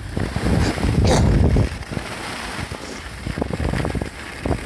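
Wind rushing over the phone's microphone and skis sliding over groomed snow during a downhill run. Loudest for the first second and a half, then a steadier, softer rush.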